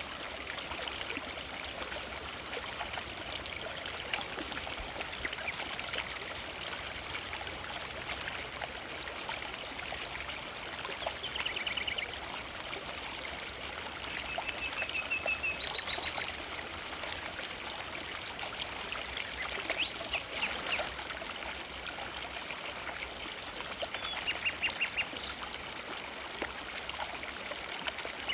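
A forest river flowing steadily, with short bursts of rapid repeated bird chirps several times over the water.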